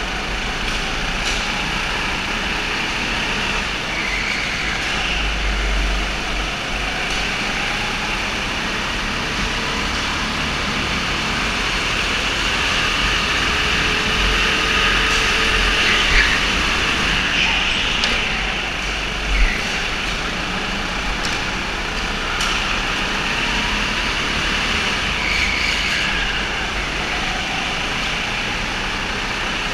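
Go-kart engines running at race pace on an indoor track, their pitch rising and falling as the karts accelerate and brake. There are a couple of sharp knocks, the loudest about 19 seconds in.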